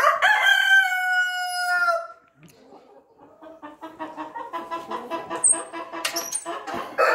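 A rooster crows once, a loud call held for about two seconds and falling slightly in pitch. Then chickens cluck in a quick pulsing run, and a second crow starts at the very end.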